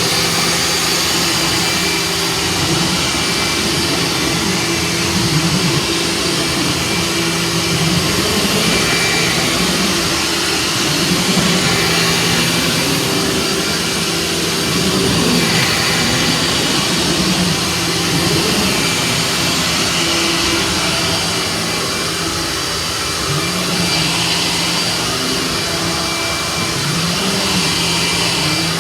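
Vacuum cleaner running steadily on a floor: a loud rushing motor noise with a steady hum, its lower tone wavering up and down a little.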